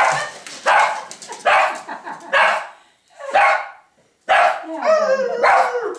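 Small dog barking repeatedly, about one bark a second, then a longer wavering cry about five seconds in. It is alarm barking at an unfamiliar costumed figure.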